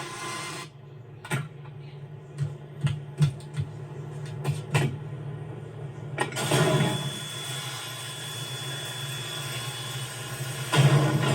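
Vehicle engine running with a steady low hum, broken by a series of sharp knocks and clatters in the first few seconds; the engine grows louder near the end.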